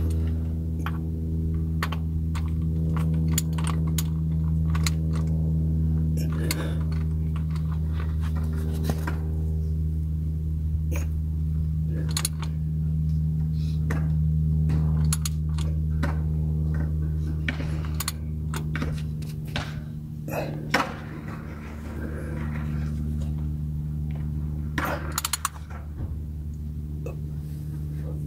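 Irregular metallic clicks and clinks of a combination wrench working a bolt on the underside of a car, over a steady low hum.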